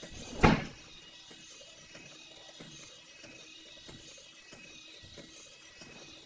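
WowWee Roboraptor toy robot dinosaur walking on a hard floor: its geared motor drive running with a small click at each step, roughly every half second or so. A single loud thump comes about half a second in.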